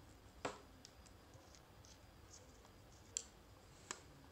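Faint clicking of a precision screwdriver turning the small screws in an Olympus Trip 35 camera's metal plate, with three sharper clicks: one about half a second in and two near the end.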